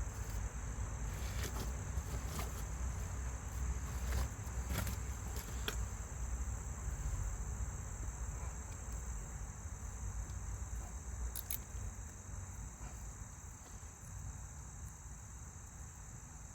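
Steady high-pitched insect chorus over a low rumble that slowly fades, with a few sharp clicks and taps in the first six seconds and another a little past the middle.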